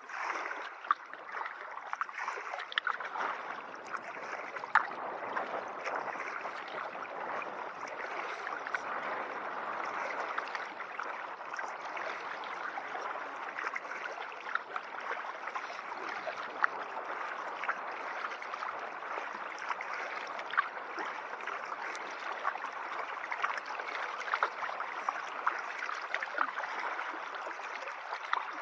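Water gurgling and trickling along a kayak's hull as it is paddled, with scattered sharp ticks and a few louder knocks.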